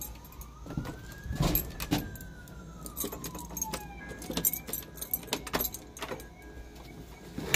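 Knocks, clicks and rubbing from a handheld phone camera being moved about, with footsteps on a wooden floor. A faint tone rises and then falls once over the first few seconds.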